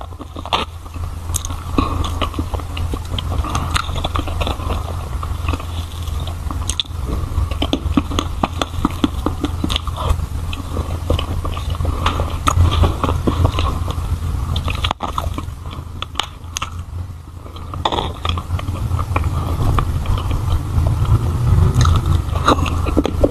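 Close-miked eating sounds: chewing, lip smacks and small wet mouth clicks, repeated many times, as soft pink mousse is spooned in and eaten, over a steady low hum.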